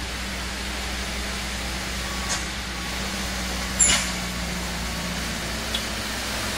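Truck engine running steadily as a small tanker truck climbs slowly past close by, with a brief sharp high-pitched sound about four seconds in.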